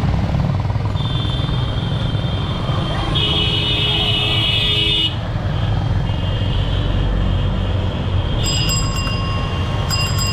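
Busy street traffic heard from a moving cycle rickshaw: a steady low rumble of motorbike and auto-rickshaw engines, with vehicle horns honking, the loudest blast lasting about two seconds near the middle.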